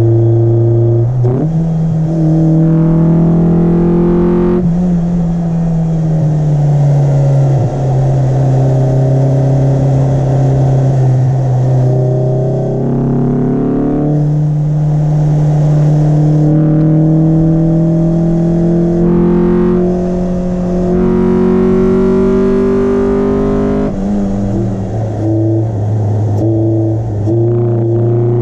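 Mitsubishi Lancer 4G15 four-cylinder engine under load, heard up close in the engine bay through an open pod (cone) air filter. The engine note climbs steadily and falls back sharply several times, then climbs again.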